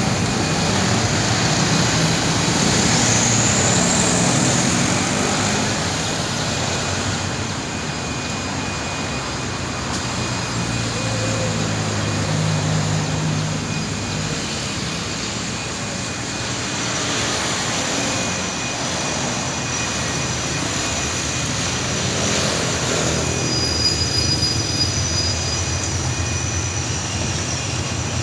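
Road traffic: cars and motorcycles passing close by on a street, over a continuous low engine drone.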